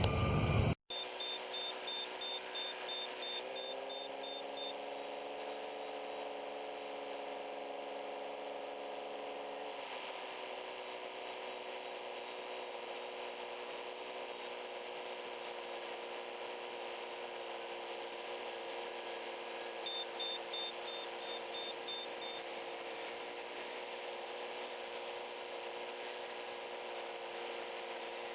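A steady mechanical hum of several tones that shifts slightly in pitch twice, with a rapid high-pitched beeping for a few seconds near the start and again about twenty seconds in.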